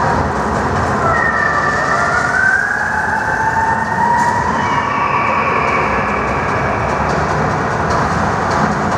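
Sound effects of a projection show: a loud, steady rushing rumble with high whistling tones sliding up and down over it from about a second in.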